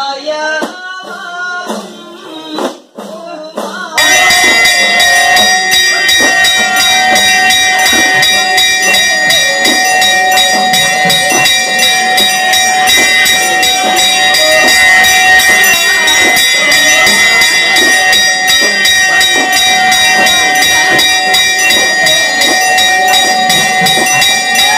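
Temple bells rung rapidly and without a break, with a jingling rattle over the steady ringing tones, during worship at the shrine. It starts abruptly about four seconds in, after a few seconds of music and voice.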